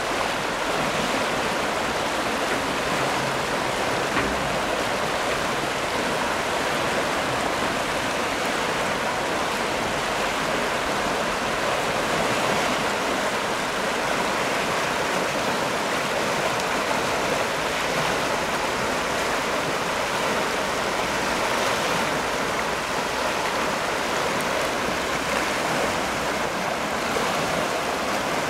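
The River Stour in flood, fast floodwater rushing and churning in broken waves: a steady, even rush of water.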